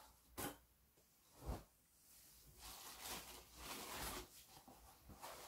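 Faint rustling of skirt fabric being handled: two short brushes in the first couple of seconds, then a longer stretch of soft rustling.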